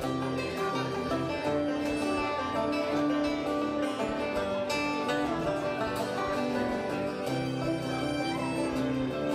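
Instrumental passage of a country-folk song: strummed acoustic guitar over bass and drums, with a held melody line on top.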